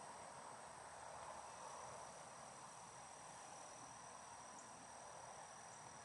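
Faint, steady high-pitched insect trilling: two unbroken thin tones over a soft hiss.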